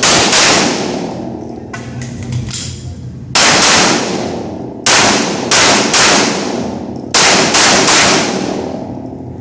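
Glock 34 9mm pistol shots fired in quick pairs and short strings with pauses between, each shot followed by a long echo off the walls of an indoor range.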